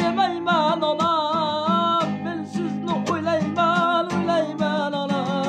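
A man sings a slow, melodic song in Uzbek, holding notes with vibrato, over a strummed acoustic guitar with a steady strumming rhythm.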